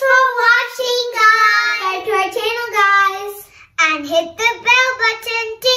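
Young girls singing a short tune, with long held notes in the middle.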